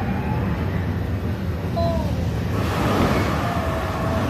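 Earthquake ride special effects: a loud, steady rumbling noise with a few brief high squeals, growing fuller a little past halfway.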